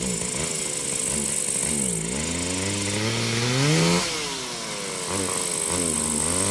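Small two-stroke petrol engine, like a brushcutter's, revving up and down, its pitch falling and climbing again several times.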